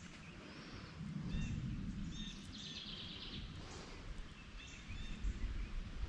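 Songbirds chirping and calling on the riverbank, with one rapid trill near the middle. A low rumble sits under them from about a second in.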